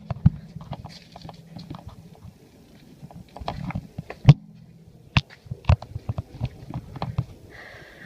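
Irregular knocks, clicks and crunching handling noise close to the microphone, with sharper single knocks about four seconds in and twice between five and six seconds.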